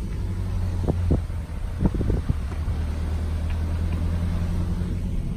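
Four-wheel drive's engine and road noise: a steady low drone, with a few short knocks or rattles about one and two seconds in.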